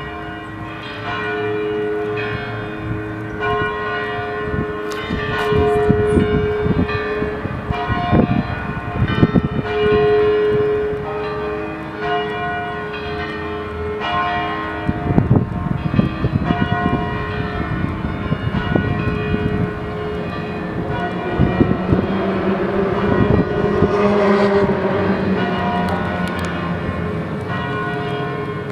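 Church bells ringing: several bells of different pitch sound one after another, each note ringing on and overlapping the next. A rushing noise rises under them now and then, most strongly around the middle.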